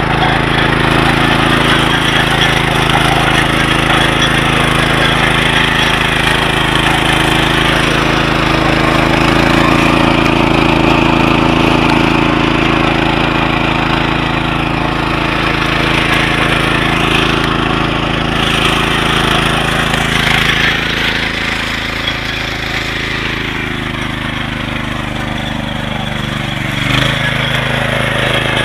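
Datsu motor hoe's small engine running steadily under load while its rotary tines chop through soil and weeds. About three-quarters through, the engine slows a little, then picks up again.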